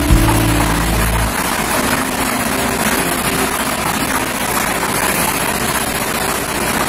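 Blower of an air-mix lottery machine running steadily, blowing the numbered balls around inside the clear drum. Background music stops about a second in.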